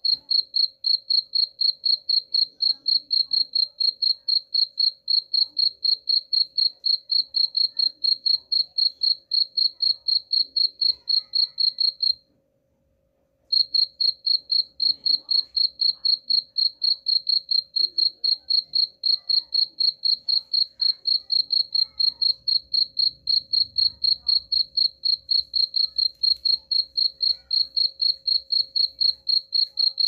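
Cricket chirping in a steady, even rhythm of about four high-pitched chirps a second, pausing for about a second near the middle before starting again.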